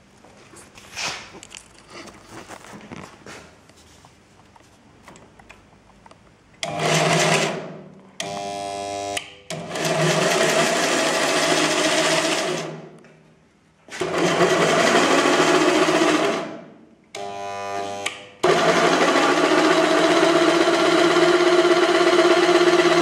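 Electric jigsaw mounted under a homemade scroll-saw table, driving the thin blade and spring-tensioned steel arm up and down. A few faint handling clicks come first. Then, from about seven seconds in, the saw is started and stopped in six runs of one to four seconds, two of them at a slower, more even pitch, and the last run carries on steadily.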